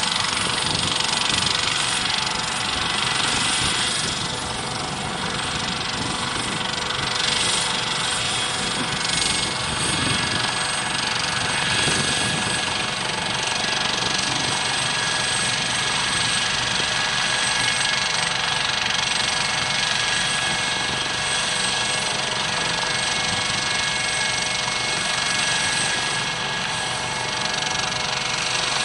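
Eurocopter AS565K2 Panther helicopter running, its turbine engines giving a steady whine in several high tones over the dense rotor and engine noise.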